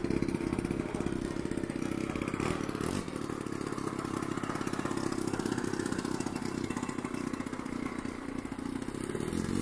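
Small engine of a radio-controlled model airplane idling on the ground before takeoff, giving a steady, fast buzzing pulse.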